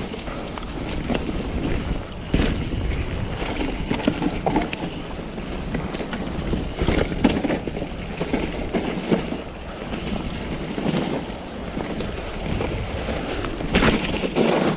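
Mountain bike ridden fast down a dirt trail: steady wind rush on the microphone and tyre rumble, broken by frequent sharp knocks and rattles from the bike over bumps.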